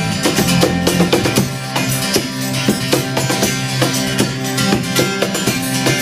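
Live rock band playing an instrumental passage in an acoustic setting: guitars with bass and a steady drum beat, no vocals.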